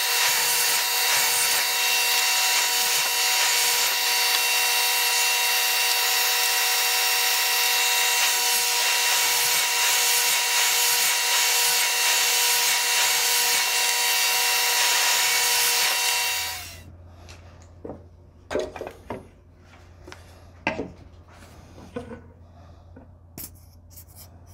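Power saw motor running steadily with a whine, then switched off about two-thirds of the way through. After it stops, a low hum remains with a few light knocks as wooden frame molding is handled.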